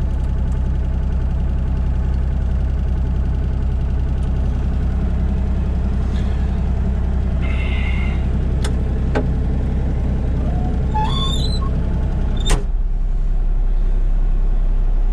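Excavator diesel engine idling steadily, heard from inside the cab as it warms up. A single knock about twelve seconds in, after which the engine note shifts.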